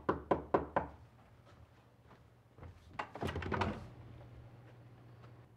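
Knuckles knocking on a panelled front door, a quick run of raps about four a second. About three seconds in comes a cluster of rattles and thuds as the door is opened.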